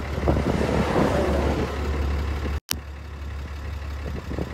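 Diesel truck engine idling, a steady low hum. About two and a half seconds in, the sound drops out for an instant with a sharp click.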